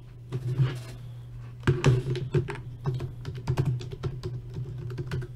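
Typing on a computer keyboard: irregular bursts of keystrokes, busiest in the middle, over a steady low hum.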